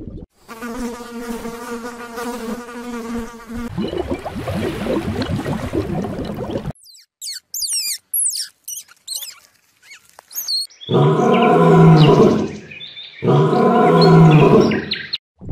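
A fly buzzing steadily for about three seconds, then a stretch of rustling noise. A run of high, squeaky grey squirrel chirps follows, then two deep lion growls of about two seconds each, the loudest sounds.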